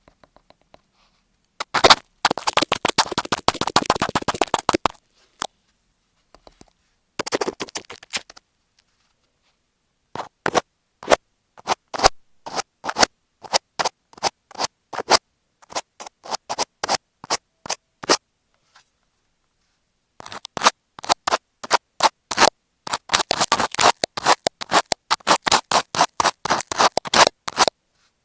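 Scratching and rubbing directly on an earphone microphone covered in masking tape, rough and loud right at the mic. It comes as dense rapid runs of scratching, with a stretch in the middle of separate strokes about twice a second.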